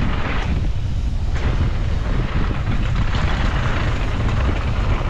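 Mountain bike riding fast down a dirt trail: steady wind rush buffeting the microphone over the rumble of tyres and bike on the track.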